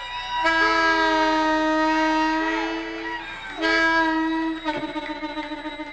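Harmonica playing long held notes, sometimes two at once, then a quickly wavering note from about three-quarters of the way in.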